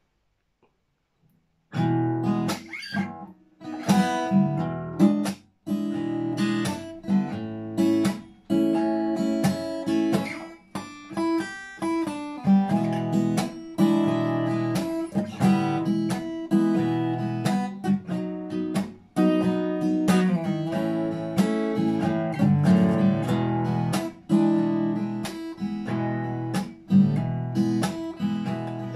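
Yamaha acoustic guitar strummed, playing the instrumental intro of a blues song. It comes in after about two seconds of near silence, with steady rhythmic strokes.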